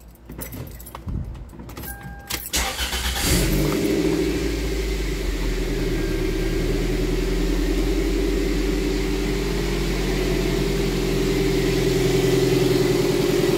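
Toyota MR2 Spyder's swapped-in 1ZZ-FE 1.8-litre four-cylinder being started: a short crank about two and a half seconds in, the engine catching within a second, then idling steadily.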